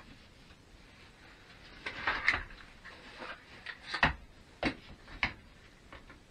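Sheet MDF panels and bar clamps being handled on a workbench: a scraping clatter about two seconds in, then several sharp knocks and taps over the next three seconds.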